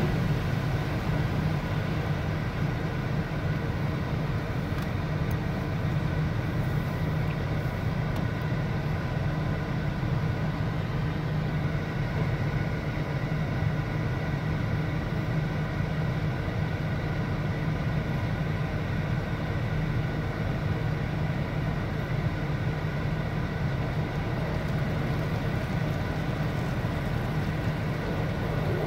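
Automatic car wash machinery running with a steady whir and hum, heard from inside the car's cabin.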